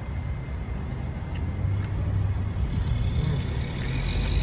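A car engine running with a low, steady hum that grows louder toward the end, as if a vehicle is moving close by.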